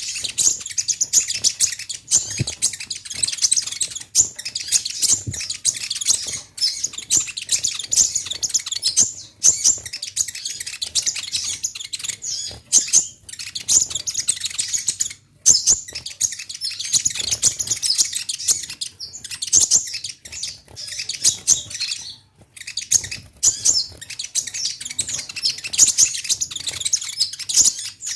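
Konin (kolibri ninja), a sunbird, singing a fast, continuous stream of high, sharp chirps and trills, with two brief pauses. This is the vigorous "gacor" song played as a lure to provoke other konin into calling back.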